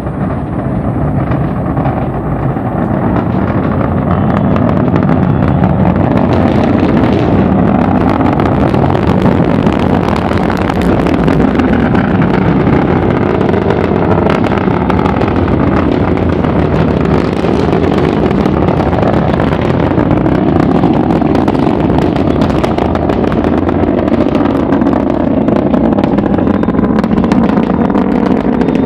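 Atlas V rocket's RD-180 engine heard in flight from a distance: a loud, steady rumble with a fine crackle running through it. It builds over the first few seconds and then holds.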